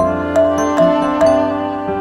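Soft background music: a gentle melody of struck notes, about two or three a second, over held chords.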